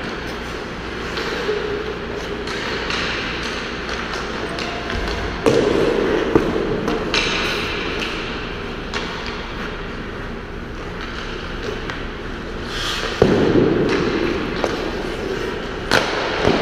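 Ice hockey rink sounds: skates scraping the ice and sticks and pucks clacking, with several sharp knocks of pucks striking the boards and glass. The loudest come about five and a half seconds in and again about thirteen seconds in.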